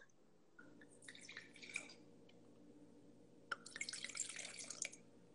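Faint pouring of wine into a glass in two short spells, the second starting with a light tap about three and a half seconds in.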